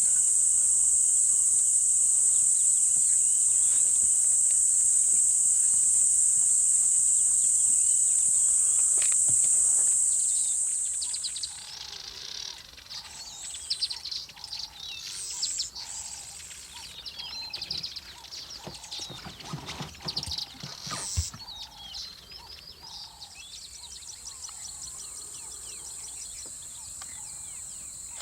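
Loud, steady, high-pitched insect drone that stops about ten seconds in. Birds then chirp and call, with one sharp knock a little after twenty seconds, and a fainter, rapidly pulsing insect buzz comes back near the end.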